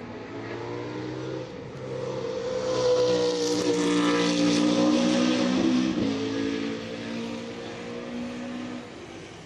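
GT3 race car engine passing at speed. It grows louder to a peak in the middle, then fades, with a break and a drop in pitch about six seconds in.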